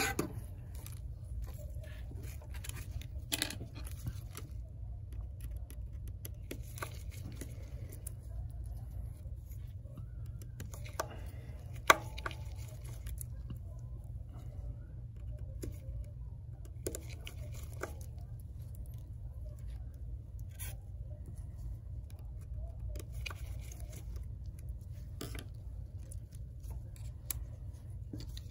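Small scattered clicks and taps of a precision screwdriver and tiny screws against the metal back plate of an iPhone screen assembly, with one sharp click about halfway through. A steady low hum runs underneath.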